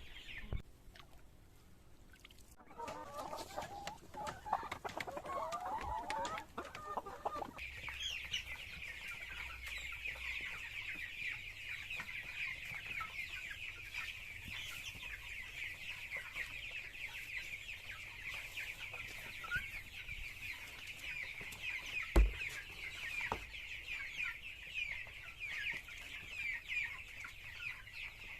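Chickens calling: clucking at first, then, after an abrupt change about seven seconds in, a steady dense chorus of high peeping. One sharp knock comes about three-quarters of the way through.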